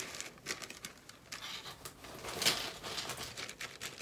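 Clear plastic bags crinkling and rustling as they are handled, with the loudest rustle about two and a half seconds in.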